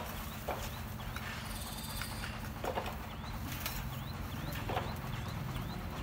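Bricklayers' steel trowels knocking and tapping on bricks and mortar: irregular sharp knocks about a second apart.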